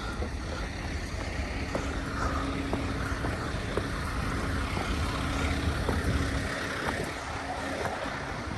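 A motor vehicle's engine running close by, a low rumble with a steady hum that drops away about six and a half seconds in, with wind buffeting the microphone.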